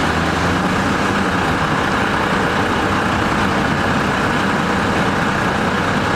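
Engine of a stationary bus idling with a steady, even noise.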